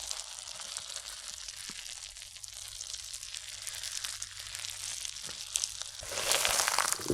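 Steady crackling, sizzling noise thick with tiny wet clicks, swelling louder about six seconds in.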